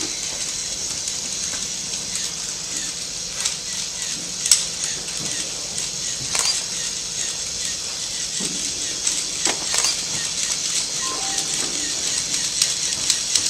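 Small battery-powered motor of a K'NEX cable car running steadily, a high whirring hiss as the car pulls itself along a chain, with a few sharp clicks from its gears on the links.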